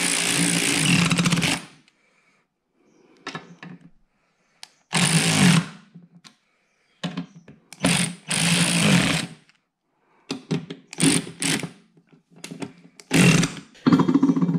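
WORKPRO cordless electric ratchet tightening the four mounting bolts of a new mower-deck spindle. It runs in repeated bursts: one long run of about two and a half seconds at the start, then shorter runs, then several quick short pulses near the end.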